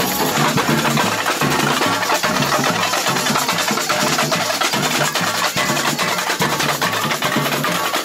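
Samba music with a driving drum and percussion rhythm, playing without a break.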